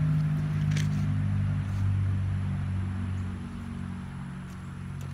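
A steady low droning hum, louder in the first couple of seconds and fading after about three seconds, with a faint click just under a second in.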